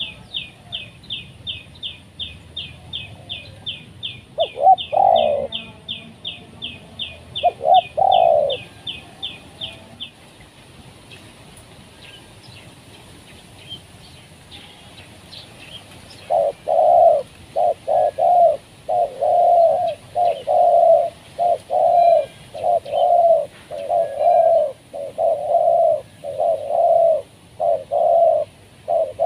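Spotted doves cooing: two short coo phrases in the first part, then from about sixteen seconds a long, regular run of low coo notes. Over the first ten seconds a steady series of high chirps, about three a second, runs alongside and then stops.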